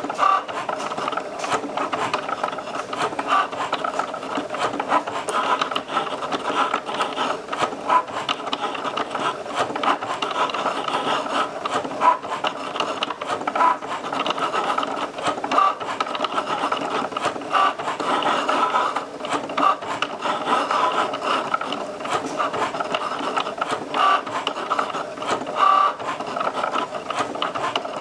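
Cricut Joy cutting machine cutting an infusible ink sheet with its fine point blade: its motors whir steadily as the blade carriage and mat feed move, with many small ticks along the way.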